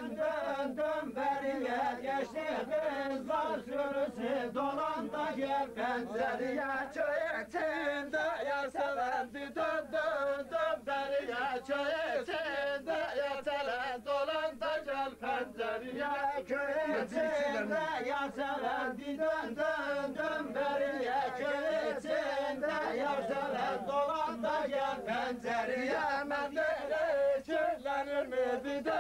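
A group of men singing a Turkish folk song together in chorus, without a break.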